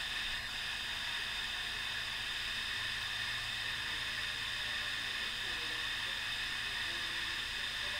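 Steady, even background hiss with a faint low hum, unchanging and with no distinct events.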